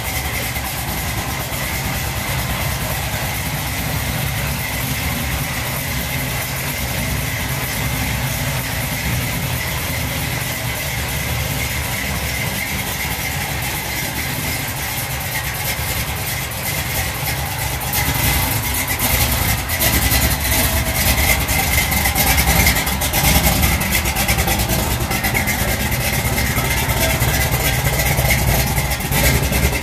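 Chevrolet C10 CST pickup's engine idling steadily, growing somewhat louder about two-thirds of the way through.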